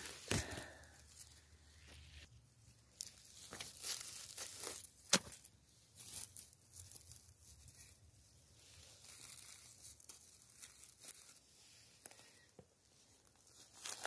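Scattered rustling and crackling in dry moss and forest litter during mushroom picking, with one sharp snap about five seconds in.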